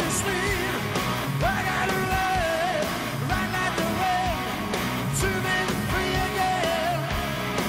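Heavy metal band playing live: drums, distorted electric guitars and bass under a male lead vocal that holds and bends long sung notes.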